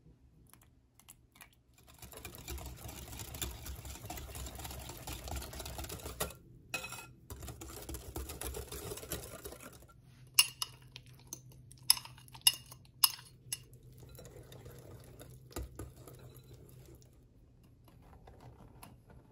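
Metal fork stirring wet batter in a glass mixing bowl, its tines ticking and scraping rapidly against the glass for several seconds. About halfway through come a handful of sharp clinks on the glass, then faint rustling.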